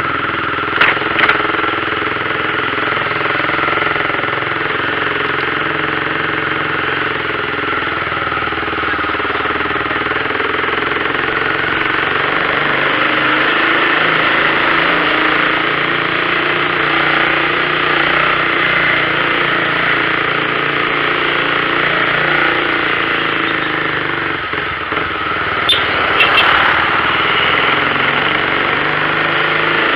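Mercedes-Benz 1113 truck's six-cylinder diesel engine running steadily, with a few short clicks about a second in and again near the end.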